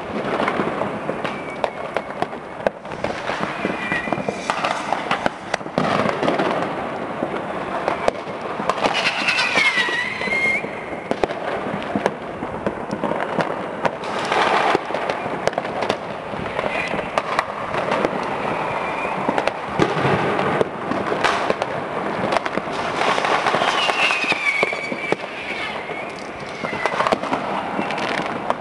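Dense, unbroken New Year's Eve fireworks: a steady barrage of firecracker bangs and crackle, with whistling rockets falling in pitch about nine seconds in and again near the end.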